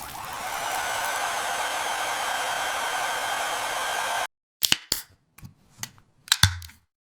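A hairdryer blowing steadily for about four seconds, then cutting off abruptly, followed by a scatter of short sharp pops over the next two seconds.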